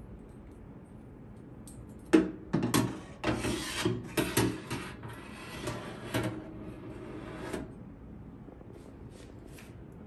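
Metal wire rack sliding along its rails in a metal-lined cabinet, starting with a sharp knock about two seconds in. Rattling knocks and scraping follow for about five and a half seconds, then stop.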